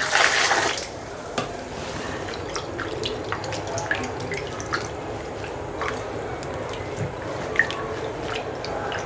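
Ripe mangoes being washed by hand in running water: a steady stream with scattered drips and splashes. The water is louder for about the first second.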